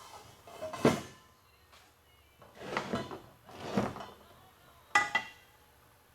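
Metal parts being handled: a clank about a second in, two longer scrapes in the middle, and a sharp ringing metal clank near the end.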